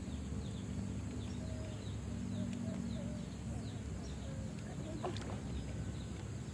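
Outdoor ambience of birds calling: many short high chirps repeating throughout, with short wavering lower calls, over a steady low rumble.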